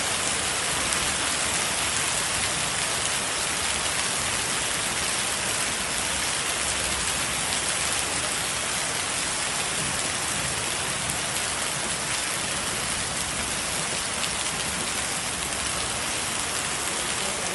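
Heavy rain mixed with hail falling on a paved courtyard: a dense, steady hiss of drops and hailstones striking wet tiles.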